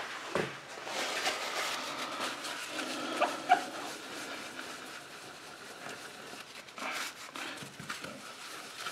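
Paper towel wet with cleaner being rubbed back and forth over a paint-caked palette: a soft, uneven scrubbing hiss with a couple of brief squeaks about three seconds in.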